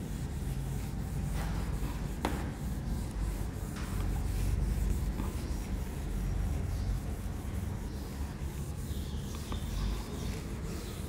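A whiteboard duster rubbing across a whiteboard, wiping off marker writing, over a steady low hum; a single sharp click about two seconds in.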